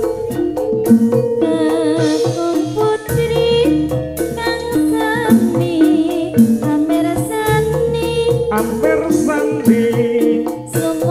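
Javanese jaranan (kuda lumping) music: a woman singing with vibrato into a microphone over drum strokes and sustained instrumental tones.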